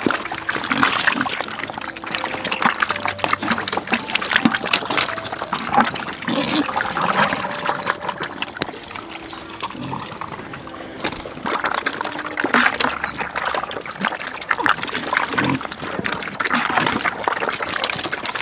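A group of young pigs eating wet feed from a trough: busy slurping and chomping, which eases off for a couple of seconds about halfway through.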